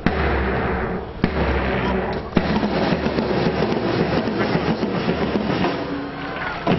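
Military drum band: heavy drum beats evenly spaced about a second apart, then dense, rattling drumming.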